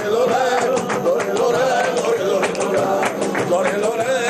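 Flamenco music: a singer's wavering, heavily ornamented melody over guitar, punctuated by frequent sharp percussive strikes.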